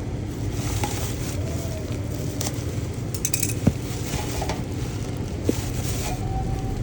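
Parcel packaging being handled: a few spells of rustling and two sharp clicks over a steady low rumble.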